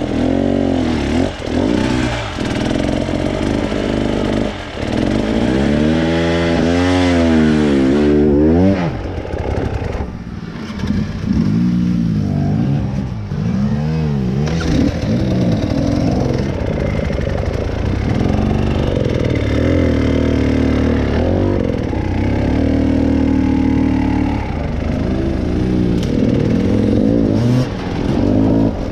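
Trail motorcycle engine revving in repeated surges, rising and falling, with one long high rev about a quarter of the way in. The bike is under load while being ridden and pushed over rocky ground.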